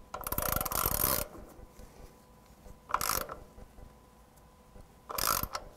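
Hand ratchet clicking in three bursts, a long one of about a second, then two short ones, as it draws the flywheel bolt onto the crankshaft a little at a time.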